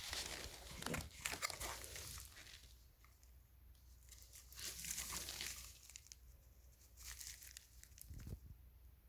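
Faint rustling and crinkling handling noises in irregular bursts, busiest in the first two seconds and again in the middle, with no steady vacuum motor running.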